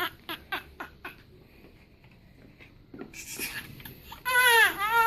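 Newborn baby crying: a few short gasping whimpers, a pause of about two seconds, then a loud wail starting about four seconds in.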